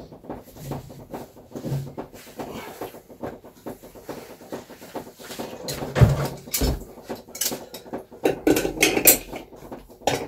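Irregular clinks, clanks and knocks of metal against metal, with a couple of heavier thuds about six seconds in and a busy run of clatter near the end, typical of tools and fittings being handled while pipe joints are worked on.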